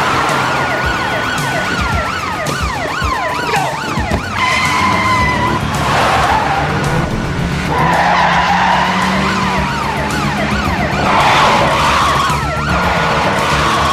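Police sirens yelping and wailing over running car engines, with tyres screeching several times during a car chase.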